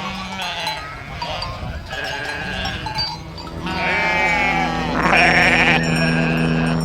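Sheep bleating: several calls one after another, with a steady low hum coming in underneath about halfway through.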